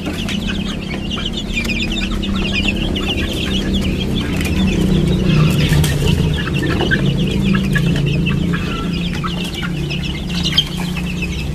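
A brood of young kampung/Bangkok-cross chicks peeping constantly, many short high cheeps overlapping, over a steady low hum. A single sharp knock comes near the end.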